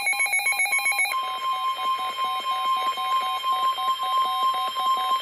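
Emergency alert attention tones. Rapidly alternating electronic beeps change about a second in to a steady high tone with a lower beep pulsing over it, about three to four times a second. They signal that a warning message is about to be read.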